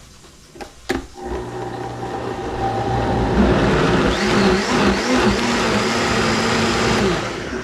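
Countertop blender switched on about a second in, pureeing roasted tomatillos, chilies and cilantro into salsa verde. The motor tone wavers briefly as the load settles, then holds steady, and the blender is switched off near the end and winds down.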